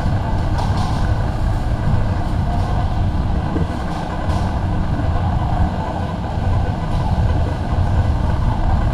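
Busy warehouse-store ambience: a steady low rumble with a murmur of shoppers and a few faint clicks.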